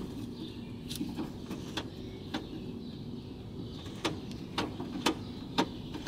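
Car door lock mechanism and linkage rods worked by hand: a series of sharp, irregular clicks, about eight in all, with a steady low hum behind them.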